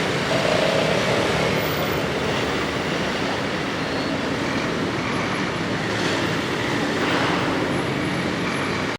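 Steady city street traffic noise: a constant wash of passing vehicles with no single event standing out.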